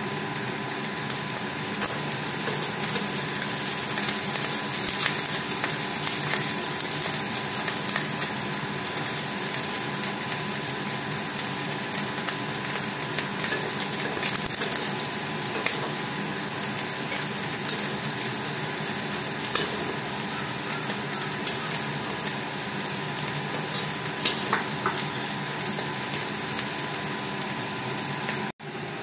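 Small prawns sizzling in hot oil in a metal kadai, with a metal spatula scraping and clicking against the pan as they are stirred and lifted out, fried through.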